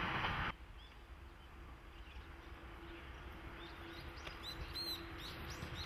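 Small birds chirping, a few short calls scattered through, over a low outdoor rumble and a faint steady hum. A louder noise cuts off suddenly about half a second in.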